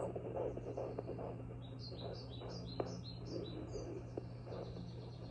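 Home fetal doppler's speaker giving a steady hum and hiss with uneven, chugging pulses as the probe picks up the 17-week fetus's heartbeat on and off. Near the middle a bird chirps a quick run of about eight high notes.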